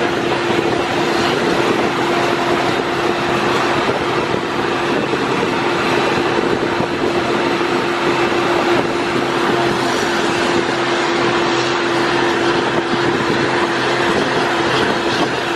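Steady running noise of a moving passenger train, with a constant hum that holds one pitch throughout.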